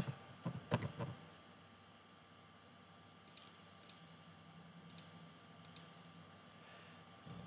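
Computer keyboard and mouse: a quick run of keystrokes in the first second, then four single sharp mouse clicks spread over the next few seconds, over a faint steady hum.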